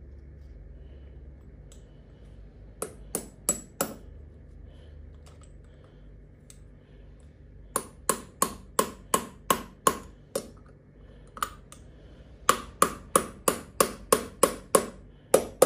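Hammer tapping on a metal PCP air-pump valve part to seat a new seal: four sharp metallic taps about three seconds in, then runs of quick light taps, about three a second, through the second half.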